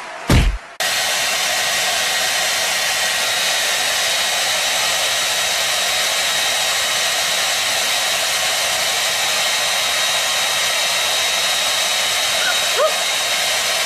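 Hand-held hair dryer running steadily: an even rush of air with a thin high whine in it. It starts abruptly about a second in, after a short thud.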